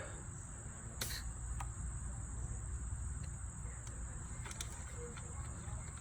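A few small clicks and taps from a trimmer's fuel lines being worked off the carburetor, the sharpest about a second in, over a steady high-pitched hum.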